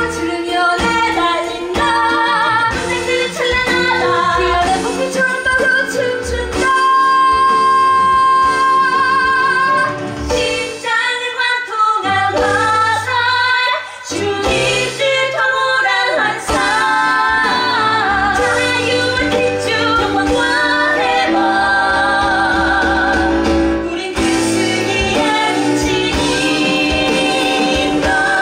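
Women singing a musical-theatre song with instrumental accompaniment, with a long held note about seven seconds in.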